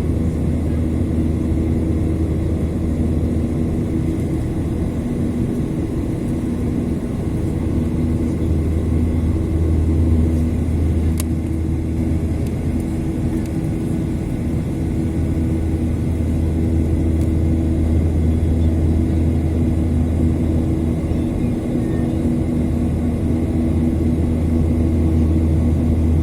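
Boeing 737-800's CFM56 jet engines running steadily, a loud low rumble with a faint hum of two tones over it, as heard from the passenger cabin after take-off. A single brief click sounds about eleven seconds in.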